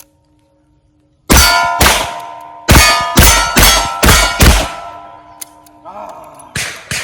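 Revolver shots in quick succession, about seven in under four seconds, each with steel targets ringing after the hits. A short pause follows, then firing resumes near the end.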